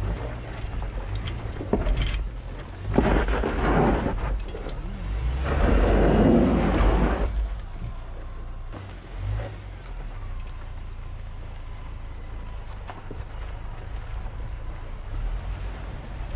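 2WD Ford Ranger pickup driving over a rough dirt trail: a steady low rumble with several louder rushing surges in the first seven seconds, the biggest about six seconds in, then steadier.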